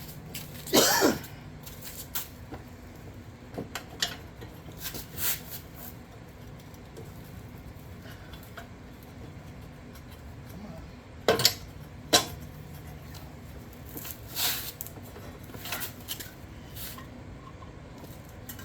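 Sporadic metallic clanks, clicks and scrapes of hand tools and loose engine parts being handled during disassembly, with the loudest knock about a second in and a pair of sharp knocks around the twelve-second mark.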